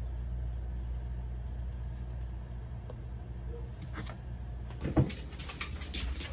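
Steady low hum, then about five seconds in a sharp thump followed by rustling and clicks as the phone and bowl are picked up and moved.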